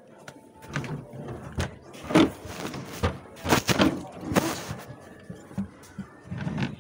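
Drawers of a chest of drawers being pulled open and pushed shut: a string of sharp knocks and thuds, the loudest about two seconds in.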